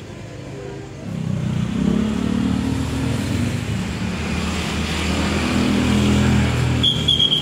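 A motor vehicle's engine running close by in street traffic, swelling up about a second in and staying loud. Three short high beeps sound near the end.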